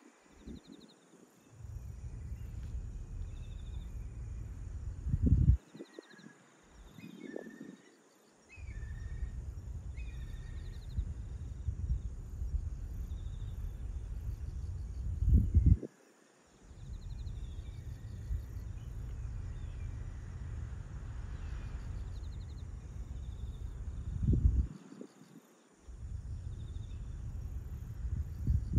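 Wind buffeting the microphone in long gusts, each a low rumble that swells sharply just before it drops away, with faint high chirps of small birds or insects throughout.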